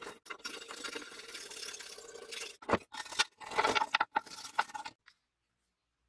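Bristle brush scrubbing paint-stripping gel over the painted cast metal halves of a 3M Scotch M-96 tape dispenser: a steady scratchy brushing that gives way to several harder, louder strokes about two and a half seconds in, then stops about five seconds in.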